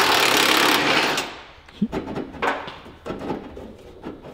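A power tool runs hard for about a second as it spins out a bolt on a pickup's front fender. A few short knocks and clatters of metal being handled follow.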